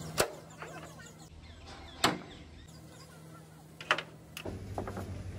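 Three sharp knocks about two seconds apart, each with a brief ring after it, over a steady low hum that grows louder near the end.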